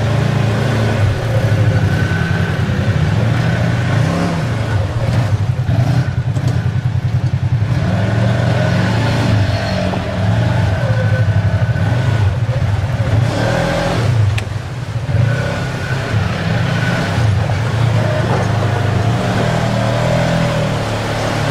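Side-by-side UTV engines running hard and revving, the throttle rising and falling as the machines push through mud and water, with a short drop in loudness about two-thirds of the way through.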